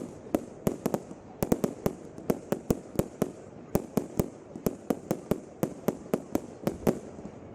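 Fireworks going off in a rapid, irregular barrage: sharp bangs about three to four a second, each with a short echo, over a low rumble.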